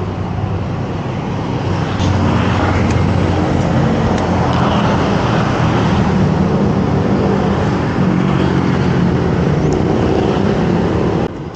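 Loud road traffic: motorbike and car engines running along a city street. The sound steps up about two seconds in and drops off abruptly near the end.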